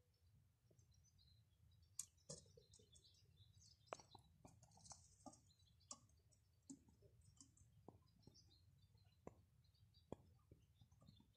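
Near silence: faint, scattered clicks and small high chirps like distant birds, over a low steady background hum.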